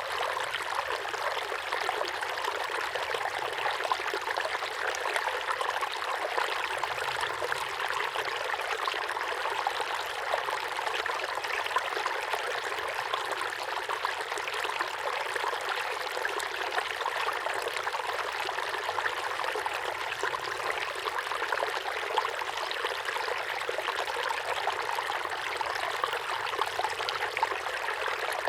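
Small waterfall pouring steadily into a pond: a continuous splashing patter of falling water with no deep rumble.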